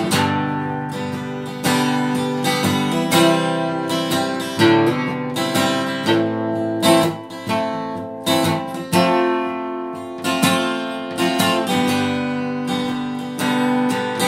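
Acoustic guitar strummed in chords, each stroke left ringing before the next, at roughly one to two strokes a second.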